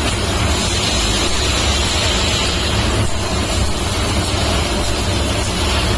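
3 kW CNC laser cutting machine running during fly cutting: a steady hiss with a low rumble underneath.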